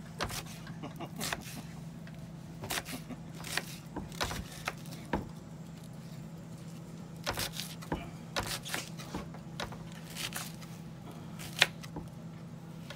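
Paring knife cutting an onion over a plastic cutting board: irregular crisp cuts and light taps of the blade on the board, with one sharper knock near the end. A steady low hum runs underneath.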